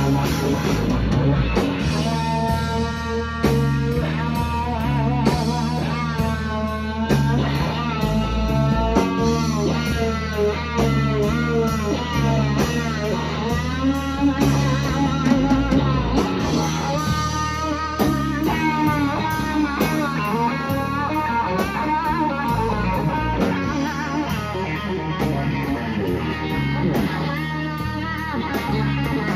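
Live blues-rock power trio: a lead electric guitar through a Fender Super Reverb amp solos with many bent, sustained notes over bass guitar and drum kit.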